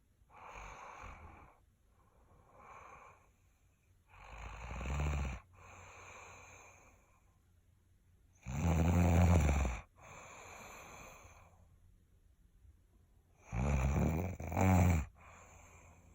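A sleeping person snoring. Loud snores come about every four to five seconds, the last one doubled, each followed by a softer breath out.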